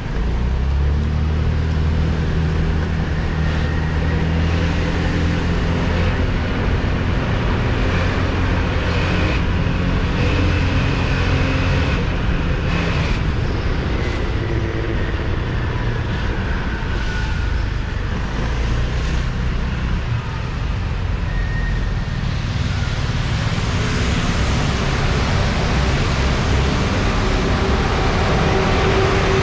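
Road traffic: a vehicle engine hums steadily for roughly the first half, then a broad, even rush of traffic and road noise.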